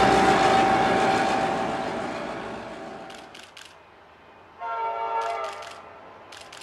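Long-hood EMD-engined T class diesel locomotives running past, the engine and rail noise fading away over the first three seconds. About four and a half seconds in, an approaching diesel locomotive sounds its horn in a loud chord lasting about a second, and a few short faint clicks follow.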